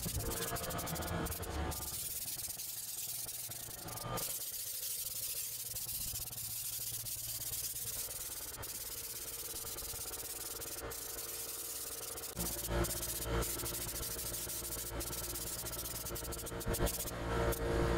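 Compressed-air spray gun fitted with a bed-liner can, hissing steadily as it sprays textured bed-liner coating, over a steady low hum. A few louder bumps come near the end.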